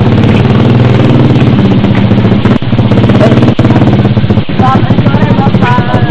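A small engine running loud and steady close by, with a fast, even pulse. Voices come in briefly near the end.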